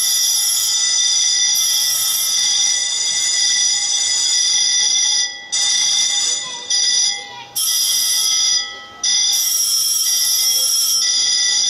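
Loud electric bell ringing. It rings steadily for about five seconds, then breaks off and starts again several times in quick succession, like a button pressed and released.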